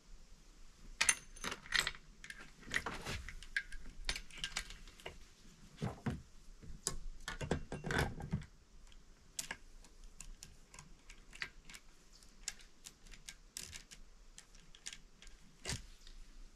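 Steel saw chain clinking and rattling in the hands as it is fitted around a chainsaw's guide bar: irregular light metallic clicks and jingles.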